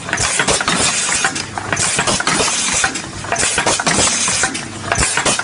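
Confetti filling machine running: a steady mechanical clatter full of quick, irregular clicks and knocks.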